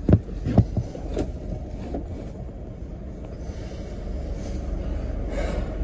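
Steady low rumble of the car heard from inside the cabin. A few short knocks come in the first two seconds as the dash-mounted phone is handled.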